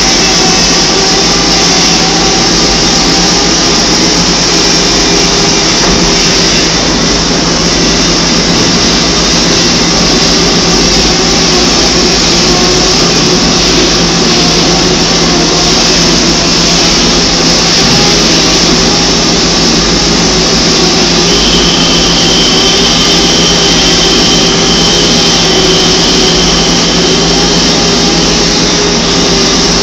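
Loud, steady machinery noise with a constant hum, from the equipment of a pipeline welding station. A faint high whine joins in about two-thirds of the way through and stops shortly before the end.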